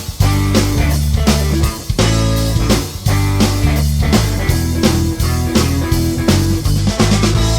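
Background rock music with electric guitar and a drum kit playing a steady beat.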